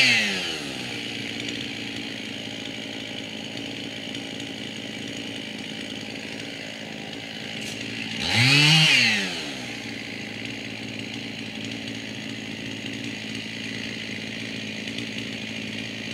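Two-stroke Husqvarna chainsaw idling steadily, revved up once about eight seconds in for a second or so and then dropping back to idle.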